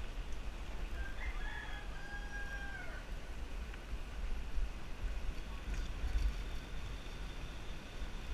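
A rooster crows once, starting about a second in: one call of about two seconds, held steady and then dropping in pitch at the end. Throughout, a steady low rumble of wind on the microphone from the moving bicycle is louder than the crow.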